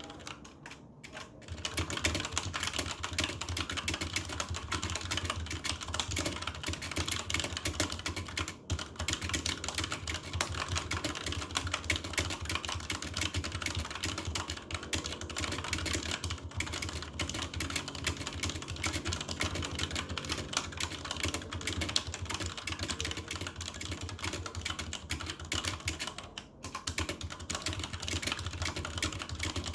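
Fast touch-typing on a computer keyboard, at about 132 words per minute: a dense, continuous stream of key clicks that starts about a second and a half in, with two brief pauses, one about 9 seconds in and one near the end.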